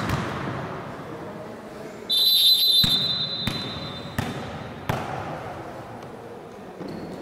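A referee's whistle blown once in a steady shrill blast about two seconds in, then a volleyball bounced on the gym floor four times, about one bounce every 0.7 s, with each bounce echoing in the sports hall.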